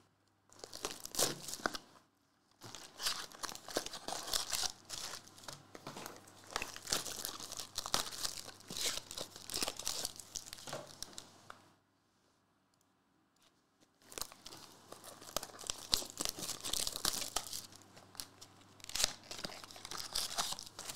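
Foil trading-card pack wrappers and small cardboard card boxes being torn open and crinkled by hand, in irregular bursts of crackling, with a silent pause of about two seconds a little past the middle.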